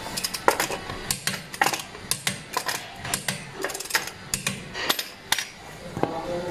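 Metal hand tool working at a car's front wheel: a rapid, irregular run of sharp metallic clicks and ticks, several a second.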